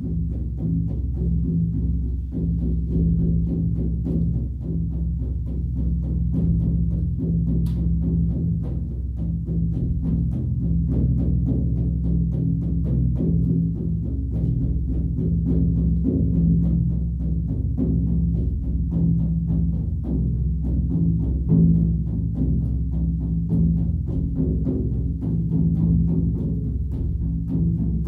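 Shamanic-style drumming: a deep drum beaten in a fast, even rhythm, with a sustained low ring underneath.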